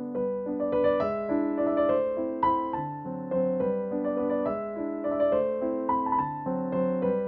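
Background piano music: a gentle melody of single struck notes over sustained lower notes.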